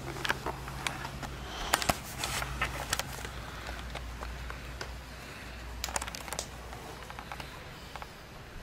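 Close handling noise: scattered sharp clicks and rustling, over a low steady hum.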